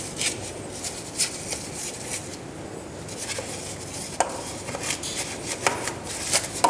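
Small detailing brush scrubbing a wet, cross-drilled steel brake disc through the wheel spokes, with scattered clicks and knocks as the brush meets the disc and wheel.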